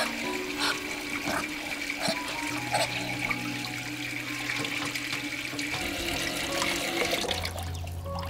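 Tap water running steadily into a stainless steel sink as a plucked chicken is washed by hand under it.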